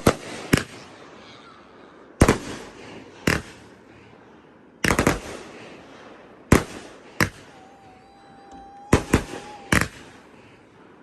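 Aerial fireworks exploding: a run of loud, sharp bangs every second or two, some coming in quick clusters of crackling pops.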